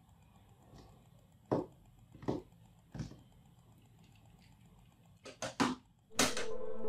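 Three sharp taps spaced less than a second apart, then a quick run of three more, over a faint low hum. Near the end a louder hit sets off electronic film-score music with held tones.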